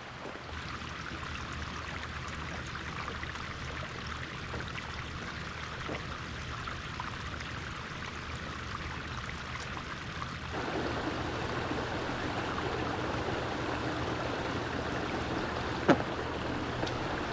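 Small mountain creek cascading over rocks: a steady rush and trickle of water that gets louder about ten seconds in. There is one sharp click near the end.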